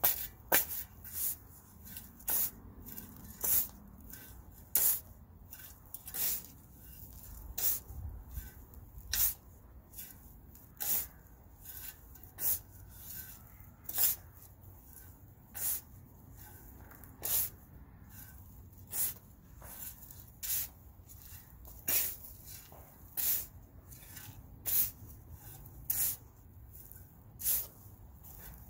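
Steel shovel blade repeatedly scraping into and turning a mound of soil mix (native clay, potting soil and decomposed granite), one short gritty hiss about every second and a half as the soil is mixed.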